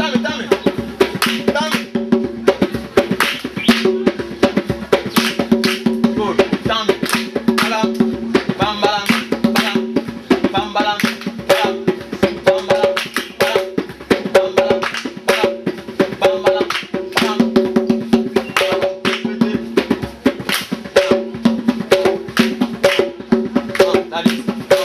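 Drums played in a fast, dense rhythm of sharp strokes over steady held pitched tones, with a voice briefly audible about nine seconds in.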